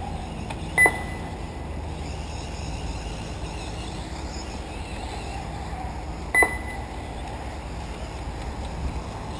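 Two short electronic beeps about five and a half seconds apart, typical of an RC race lap-timing system as a car crosses the timing loop, over steady wind noise on the microphone.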